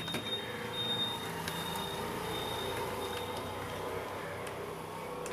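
Small electric motor and plastic gearbox of an RC toy car whirring steadily as its wheels spin, with a few sharp clicks from handling.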